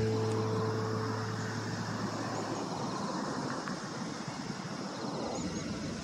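Strummed acoustic guitar music fades out over the first two or three seconds, leaving a steady outdoor background hiss with a few faint, high, short chirps.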